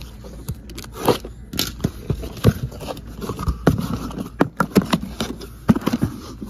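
Cardboard shipping case being pulled open by hand: flaps scraping and crackling, with many short sharp snaps and rustles.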